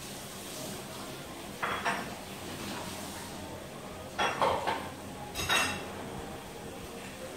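Dishes and utensils being handled off-camera: three small clusters of short clinks and knocks, the last ringing briefly.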